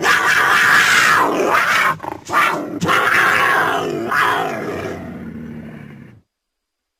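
Cougar giving two long, loud calls, the first about two seconds long, the second about three seconds and tailing off; each falls in pitch toward its end.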